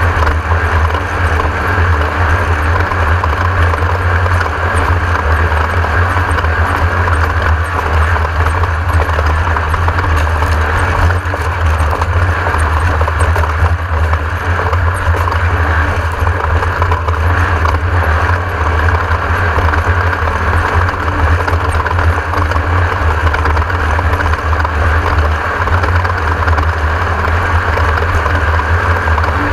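Class 1600 off-road race car's air-cooled VW engine running steadily at speed, a loud constant drone with no let-up.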